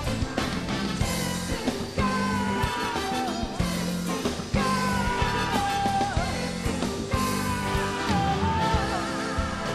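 Live band music with a woman singing the lead in long, wavering melodic lines over a steady beat.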